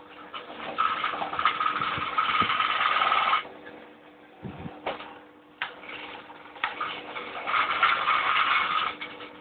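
Small electric motors of a home-built robot vacuum cleaner whining in two spells of about two to three seconds each, with a quieter pause between them, along with clicks and rattles from the chassis.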